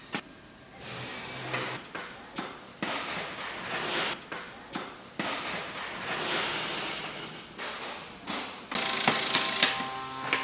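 Wooden knocks and clatter as plywood cable-drum parts and boards are handled, bolted and rolled: many sharp irregular knocks with scraping in between, and a loud burst of hissing noise about nine seconds in.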